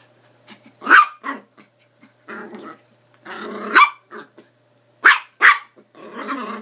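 Yorkshire terrier barking in about five sharp yaps, with stretches of growling in between.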